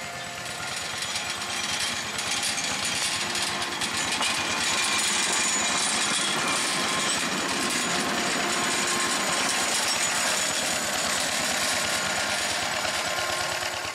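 Small engine of a miniature-railway shunting locomotive running under load as it hauls a skip wagon along the track, with a rapid, even beat. It grows louder over the first couple of seconds, then holds steady.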